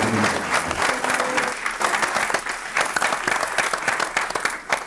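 Audience applauding, many hands clapping at once, dying away right at the end.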